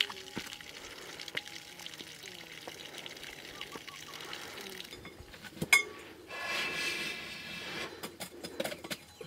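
Water trickling and splashing with scattered small knocks, then a sharp knock about halfway through, a rush of pouring liquid lasting about two seconds, and a few metal clinks of cookware near the end.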